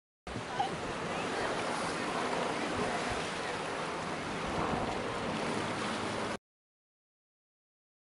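Sea surf washing over a rocky sandstone shore: a steady, even rush of water noise that starts abruptly and stops suddenly after about six seconds.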